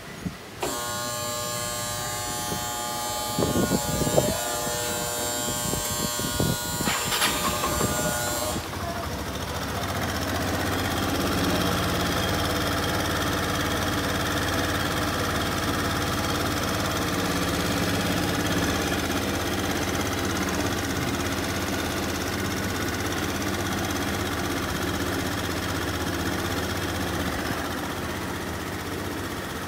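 Yamaha BWS X scooter engine running steadily, settling into an even drone from about nine seconds in. Before that there are a steady mix of tones and a few knocks.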